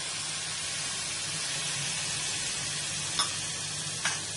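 Spiced onion-tomato masala sizzling in hot oil in a steel kadhai as a little water goes in, a steady hiss with a couple of short clicks near the end.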